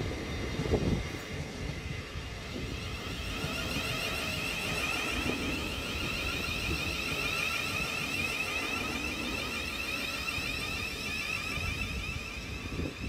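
Thameslink Class 700 electric multiple unit moving slowly past, its traction motors giving a steady whine of several pitches over the low rumble of the wheels. Gusts of wind hit the microphone in the first second.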